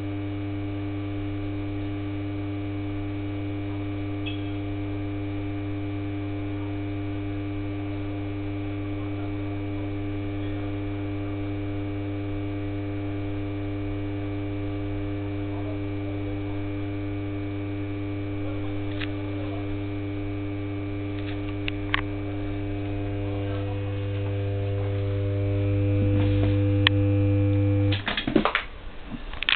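Steady electrical hum from the ballast of a lantern running Philips SON-H 210 W high-pressure sodium lamps, a low drone with a few higher overtones. It grows louder over several seconds near the end, then cuts off abruptly, followed by a scatter of clicks and ticks.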